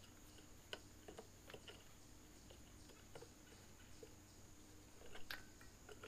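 Near silence with a few faint clicks and small handling sounds from a metal flashlight as its push-button end cap is unscrewed.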